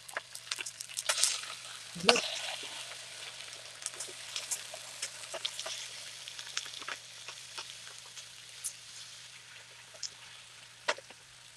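Raw pork belly slices and eggs sizzling on a hot grill pan, a steady frying hiss with scattered pops and clicks, and a sharper burst of sizzle about two seconds in.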